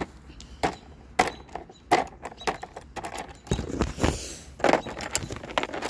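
Scattered clicks and light knocks of makeup tubes and compacts being handled and picked up from a mat, with a brief rustle a few seconds in.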